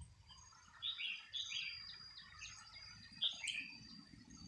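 Red-whiskered bulbuls calling: a series of short chirps, several in quick succession about a second in and more about three seconds in, over a faint steady high tone.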